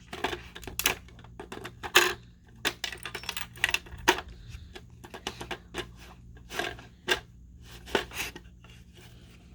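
A dog working at a treat puzzle box: irregular clicks, knocks and clatters as its turn-and-lift compartments are nosed and moved.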